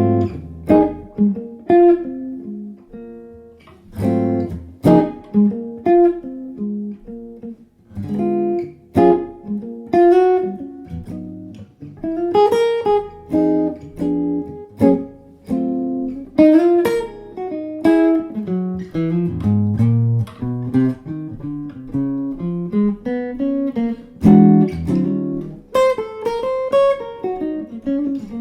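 A 15.5-inch maple archtop jazz guitar being played: chords struck and left to ring, with single notes moving between them.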